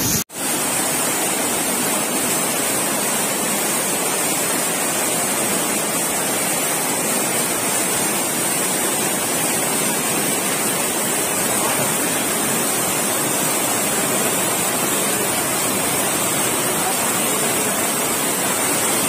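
Loud, steady rush of a waterfall and a stream in flood, swollen by cyclone rains, pouring through a rocky gorge. There is a split-second break in the sound just after the start.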